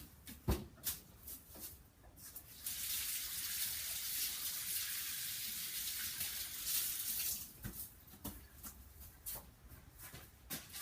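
Water tap running into a sink for about five seconds, starting near three seconds in and shut off about halfway through, with a few light knocks and clicks before and after.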